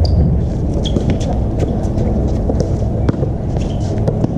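Basketball players running on an outdoor hard court: a steady patter of footsteps and short knocks, with a few brief shoe squeaks, over a constant low rumble of wind on the microphone.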